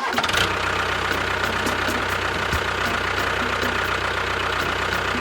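Engine running at a steady idle with a fast, even chugging rhythm. It starts abruptly as the music cuts off.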